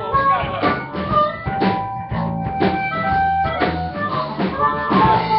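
Live blues-rock band playing: harmonica holding long wailing notes over electric guitar, bass guitar and drum kit keeping a steady beat.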